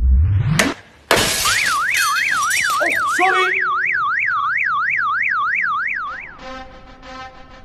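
A rising whoosh that cuts off, then a sudden crash of noise about a second in, followed by a fast warbling siren sound effect, rising and falling about three times a second for some five seconds. Quieter rhythmic music takes over near the end.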